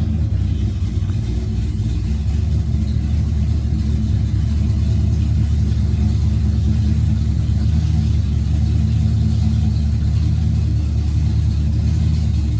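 Ford Mustang S197 engine idling steadily just after being started, with a loud, even low rumble.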